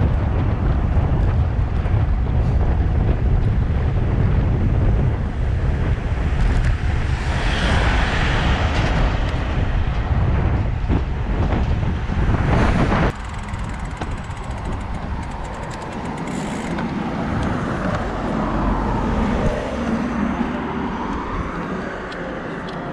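Wind rushing over the microphone of a handlebar-mounted camera on a moving road bicycle, mixed with road traffic. The heavy wind noise drops off suddenly about thirteen seconds in, leaving quieter traffic sound.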